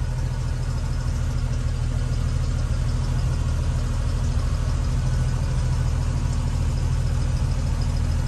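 1975 AM General DJ5-D Postal Jeep's engine idling steadily, a low, even hum.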